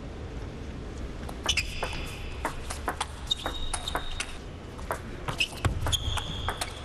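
Table tennis rally: the ball clicking off the rackets and the table in quick, irregular succession, with several short high squeaks of shoes on the court floor, over a low steady hall rumble.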